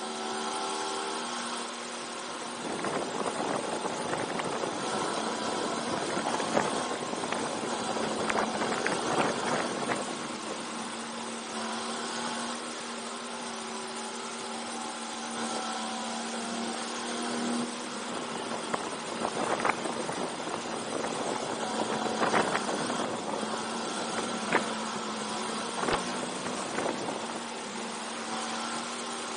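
Go-kart's small engine running through a lap, heard from on board, its note steady with the loudness swelling and easing. Several brief rushes of noise cut across it.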